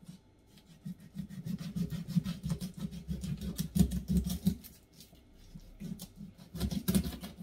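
Knife cutting open a whole red snapper with its scales still on: a quick, irregular run of rasping, scraping strokes, heavier in spells near the middle and just before the end.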